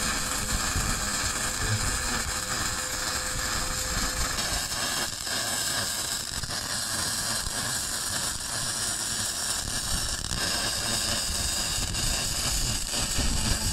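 MIG welder's arc crackling steadily, without a break, as a bead is run along the seam of a 6 mm steel hull plate.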